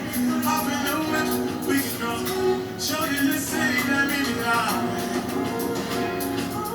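Background music: an R&B song performed live by a male singer with a band, the singing carried over a steady accompaniment.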